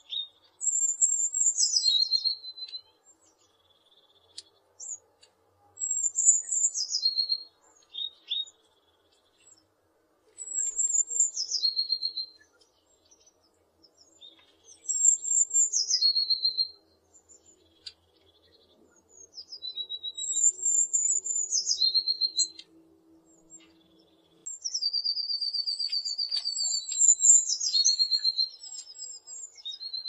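Eurasian blue tit singing a short song about every four to five seconds: a few thin, high notes dropping into a lower trill. Near the end it sings a longer trill.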